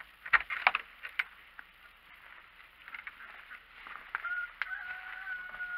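Metal barrel-bolt latch on a wooden coop door clacking as it is worked open, with a few sharp knocks of the door in the first second. About four seconds in, a steady, flat squeal is held for nearly two seconds.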